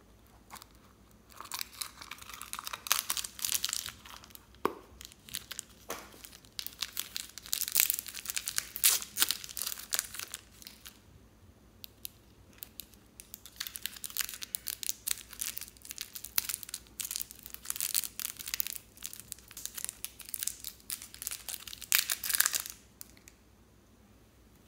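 Soft modeling clay being squeezed and torn out of plastic toy molds by hand, a crisp crackling and tearing in three bouts with short quiet gaps between.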